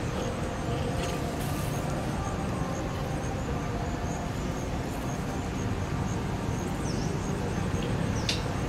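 Steady outdoor background rumble with a constant level, like distant road traffic. Two faint, short high chirps come near the end.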